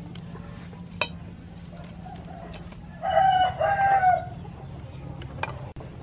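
A rooster crowing once, about three seconds in: a loud crow of a little over a second with a short break in the middle.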